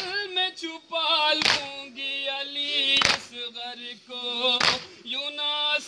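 Voices chanting a nauha, a Shia mourning lament, in a sustained melodic line, with a sharp chest-beating stroke (matam) keeping time about every second and a half.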